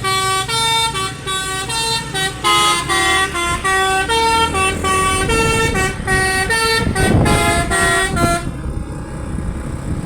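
Tour bus basuri telolet multi-tone air horn played by hand, sounding a quick koplo-style tune of short two-note chords that step up and down, stopping about eight seconds in. A low rumble runs under the last notes and carries on after them.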